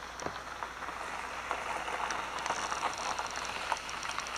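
Outdoor background noise: an even hiss with scattered crackles and a faint, quick, high-pitched ticking.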